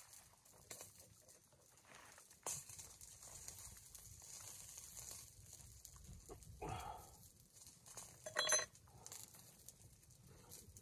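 Two faint animal calls, a short one about two-thirds of the way in and a louder, higher one about a second and a half later, over a faint steady hiss with a few light clicks.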